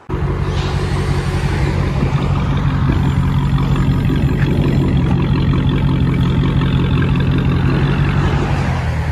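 Dodge Challenger Hellcat's supercharged 6.2-litre V8 idling steadily through an exhaust with the mid mufflers (resonators) deleted, keeping the factory X-pipe and factory mufflers.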